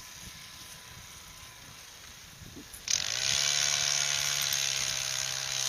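Fishing reel drag buzzing as a hooked northern pike runs and pulls line off. It starts suddenly about three seconds in, climbs briefly in pitch, then holds a steady whirring buzz.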